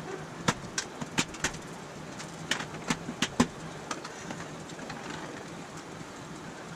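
About a dozen sharp, irregular metallic clicks and ticks in the first four seconds, from the freshly TIG-welded aluminum panel and the clamps holding it, over a steady low hum.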